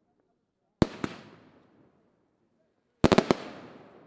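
Aerial fireworks shells bursting. Two sharp bangs come in quick succession about a second in, then a rapid cluster of four or five bangs near the end, each trailing off in a long echo that dies away.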